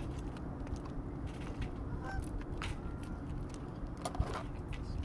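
Crinkling and crackling of a foil-faced fireproof sheet being handled, over a steady low rumble. A few short pitched calls come through about two seconds in and again about four seconds in.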